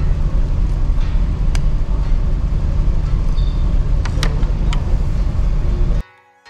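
Steady low rumble of a ferry's engines and machinery, with a few light clicks, cut off abruptly about six seconds in.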